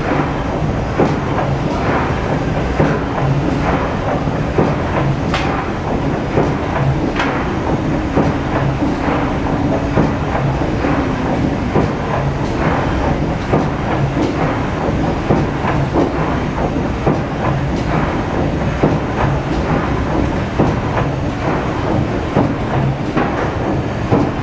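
Triple-expansion marine steam engine running at speed, its cranks and rods turning with a steady churning and a regular beat of sharp knocks.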